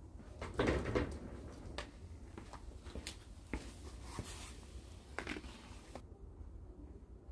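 A few light knocks and scrapes, loudest about half a second to a second in, as a cat squeezes through the narrow gap under a metal roller shutter.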